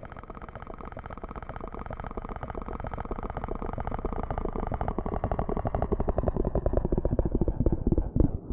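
Electroacoustic sound design: a fast train of low, buzzy pulses that swells steadily louder and slows toward the end, breaking into separate thumps. A faint high whine drifts slowly down in pitch above it.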